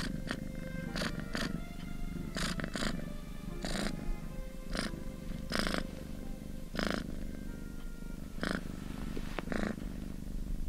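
Newborn kittens mewing: about a dozen short, high cries spread irregularly, over soft background music.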